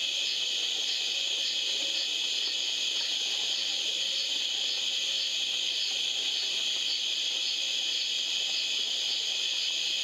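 Steady chorus of night insects: a dense, high-pitched buzzing with a faint regular pulsing.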